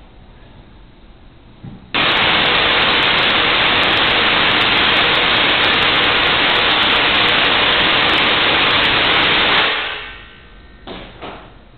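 Tesla coil firing, its spark streamers discharging from the top as a loud, steady hiss. It starts suddenly about two seconds in, runs for about eight seconds and fades out near the end.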